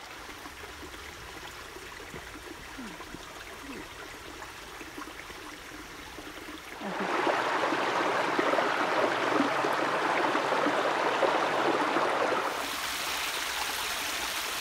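Creek water running and splashing over a small rocky cascade. It gets clearly louder about seven seconds in and eases off a little near the end.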